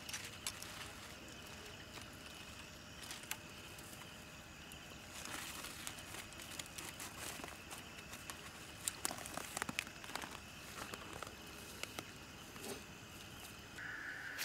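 Faint rustling of a woven plastic bag and small handling clicks, busiest in the middle stretch, then footsteps on a dirt path, over a steady high insect trill.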